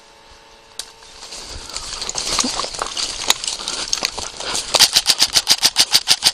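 Rustling of brush and undergrowth, then an M4-style airsoft rifle firing a rapid, evenly spaced string of shots, about eight a second, over the last second and a half.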